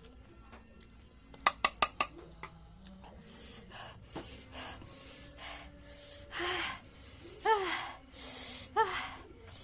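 A person gasping and panting in sharp breaths through the mouth from the burn of chilli-hot food, a string of breathy puffs starting about three seconds in, a few with a short voiced rise and fall. Before that, about a second and a half in, four quick sharp clicks.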